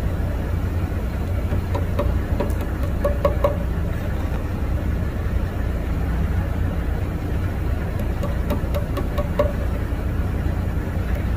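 A steady low mechanical rumble with scattered light clicks and knocks over it.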